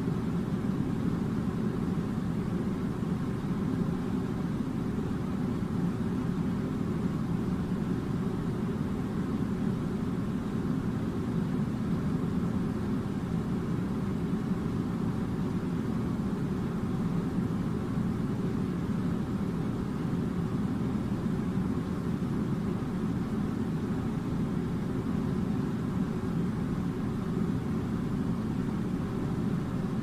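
A steady, unchanging low rumble of machinery noise, with no breaks or changes in level.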